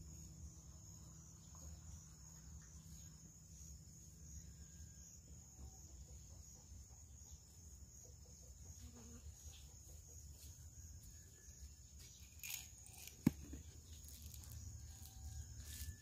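Faint steady high-pitched insect drone over a low rumble, with one sharp click about thirteen seconds in.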